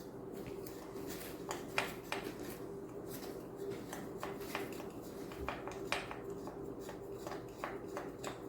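Small digging tool scraping and picking at a hard clay dig-kit block, giving a run of short, irregular scratches.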